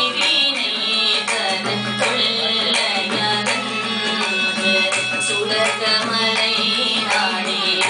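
Carnatic vocal music: a woman singing a melodic line, accompanied by mridangam drum strokes.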